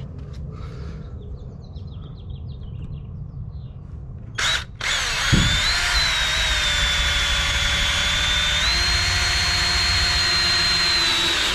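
Cordless drill driving a mounting screw into a trailer's aluminium skin. A short blip, then a steady whine for about six seconds that steps up slightly in pitch partway through and stops near the end.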